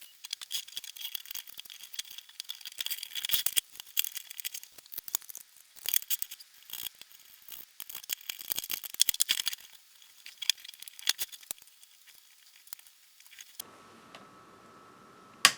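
Small hard parts being handled on a workbench: rapid light clicking and rattling. About 13.5 seconds in, a faint steady hum with a thin high tone starts, and one sharp click follows near the end.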